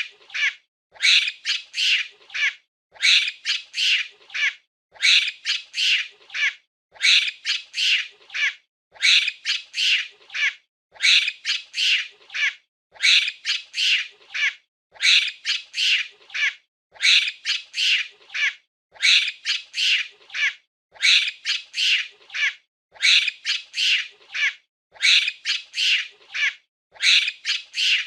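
Monkey calls: a group of about four short, high-pitched calls, repeating evenly every two seconds.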